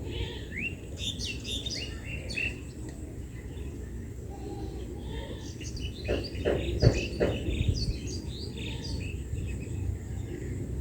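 Small birds chirping in the background with short rising calls, over a low steady hum. A few sharp clicks or taps about six to seven seconds in, the loudest sounds here.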